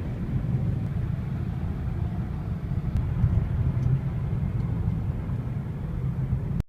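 A car driving, heard as a steady low rumble of road and engine noise, which cuts off abruptly near the end.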